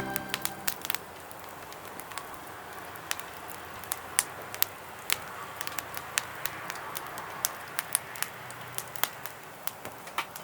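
Wood fire crackling in a SOOMLOOM secondary-combustion fire pit: irregular sharp pops, a few a second, over a soft steady hiss of burning.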